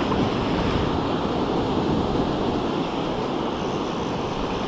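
Steady rush of ocean surf washing onto the beach, with wind noise on the microphone.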